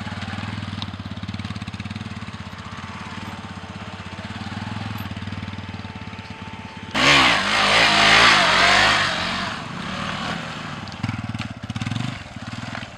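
Motorcycle engine running steadily at low revs, then revved hard and loud about seven seconds in for a few seconds, with more throttle blips near the end as the rider lifts the front wheel into a wheelie.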